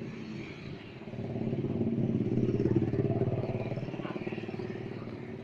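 A motor vehicle's engine passing close by, its pulsing note growing louder to a peak about two and a half seconds in, then fading away.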